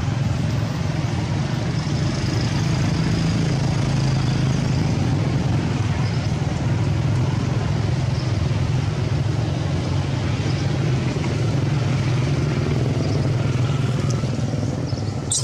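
Steady low motor rumble, like a nearby engine running, holding level without a break, with a few faint short high squeaks over it.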